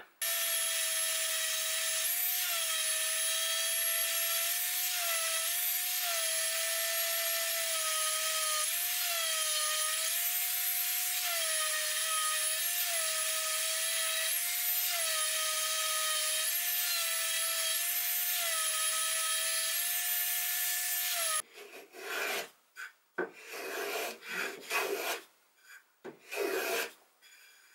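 Random orbital sander running on a thin sapele board: a steady motor whine with sanding hiss, its pitch dipping and recovering again and again as it is pressed down and moved about. It stops abruptly, and a hand plane follows with several short strokes skimming the board's edge.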